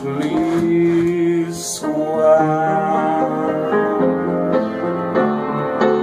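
A man sings the word 'Berkeley', holding its last note for about a second, then the piano accompaniment carries on alone with a run of notes and chords.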